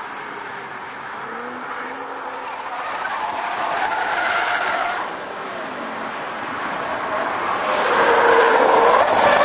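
Car engine running at speed, its note rising and falling as it accelerates, over tyre and road noise. It grows louder near the end as the car comes closer.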